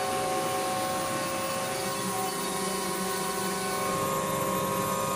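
X-Carve CNC router's spindle milling plywood, running steadily: an even whine of several held tones over a rushing noise.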